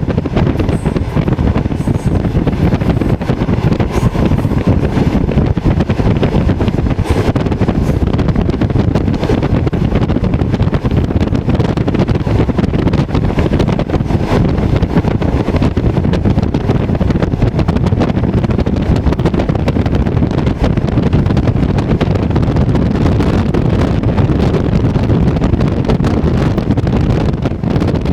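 Wind buffeting the microphone at the window of a moving passenger train: a loud, steady rush heavy in the low end, over the rumble of the carriage.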